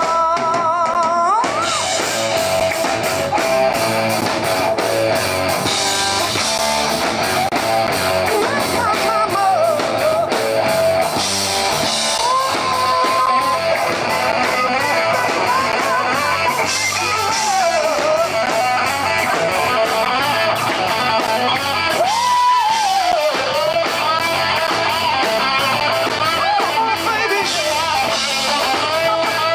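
Live rock band playing: electric guitar lines with string bends over bass and drums, with a regular drum beat.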